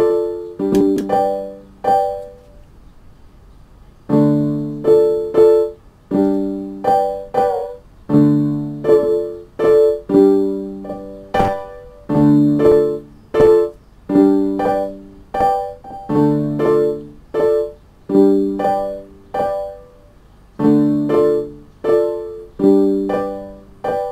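Piano playing a run of short struck chords, one to two a second, each fading away, with a pause of about two seconds near the start and a brief one later on.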